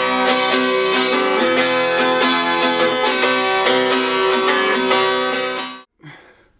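Acoustic guitar music with strummed, plucked chords, which stops abruptly about six seconds in.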